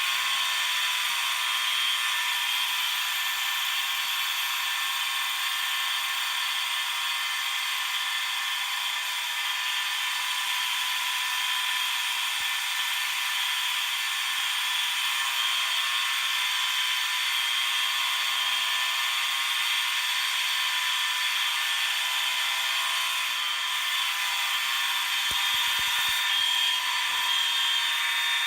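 Many fire alarm horns sounding together on continuous, a loud, steady wall of overlapping buzzing tones with no break.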